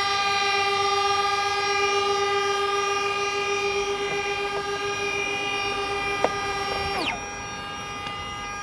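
Small brushed DC electric motor driving the water-jet pump of a radio-controlled toy jet ski, running as a steady high whine. Two such whines overlap. About seven seconds in, the louder one falls in pitch and stops, and a quieter whine carries on.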